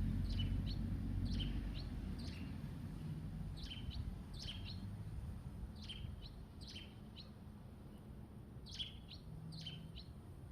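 A small bird chirping: short, high, falling chirps, often in pairs, about once a second. Under it, a low wind rumble that eases off over the first few seconds.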